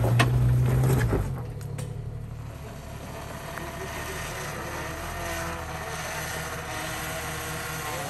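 Jeep engines on a rock crawl: one running loud and steady under load for about the first second, then, after a cut, another Jeep's engine running steadily at low revs.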